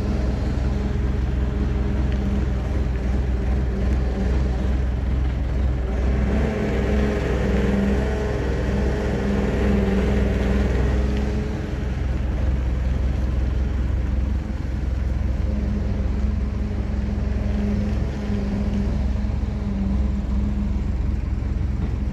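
Demag V72 mobile crane's air-cooled Deutz F4L912 four-cylinder diesel running steadily while the crane drives. For several seconds in the middle the engine note grows louder and brighter, then settles back.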